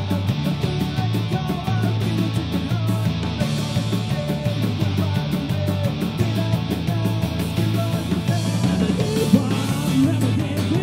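Celtic punk band playing live: a man singing over electric guitar, bass guitar, drums and fiddle, with a steady repeating bass line and a driving beat.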